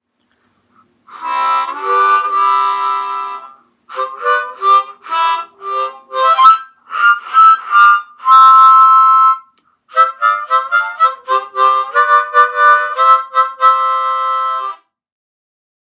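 Harmonica played by a beginner in short phrases, several notes sounding together rather than single clean notes, with brief breaks about four and ten seconds in; the playing stops near the end.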